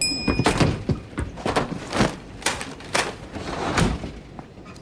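A series of sharp, irregular knocks and thuds, about a dozen over a few seconds, with a short high beep right at the start.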